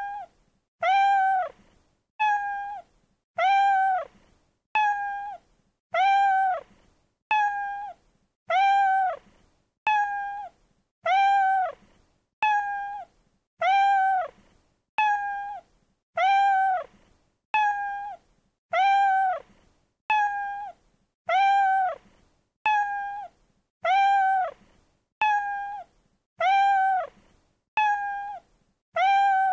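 A cat's meow repeated over and over at a steady pace, about once every 1.3 seconds, each copy identical and dropping in pitch at its end: a single meow looped as a sound effect.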